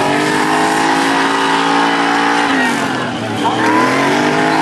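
Off-road race truck's engine revving hard and held at high revs as it drives through loose dirt. The revs drop about two and a half seconds in, then climb again about a second later.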